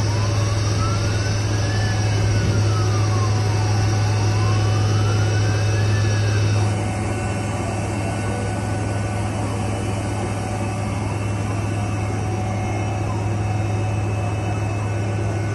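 Helicopter cabin noise: the steady loud drone of the engines and rotor heard from inside the cockpit. In the first half, a faint siren-like tone slowly rises and falls twice and then stops. About halfway through, the drone abruptly turns duller and a little quieter.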